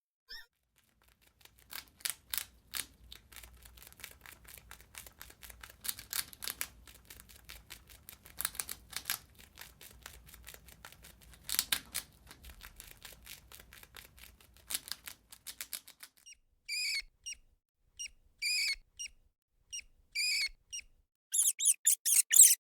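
Rat sounds: a long run of rapid, scratchy clicking over a faint low hum, then, about two-thirds of the way in, a series of short high-pitched squeaks, roughly one a second at first, then louder and closer together near the end.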